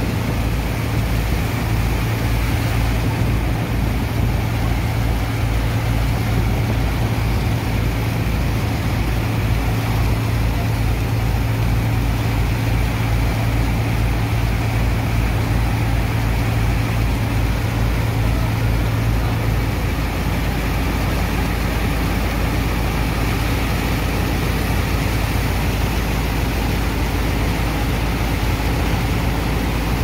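Engine-driven water and sand pump running steadily with a low, even throbbing, over the constant hiss of high-pressure water jets spraying into wet sand. About two-thirds of the way through, the engine note changes and the throbbing smooths into a steadier drone.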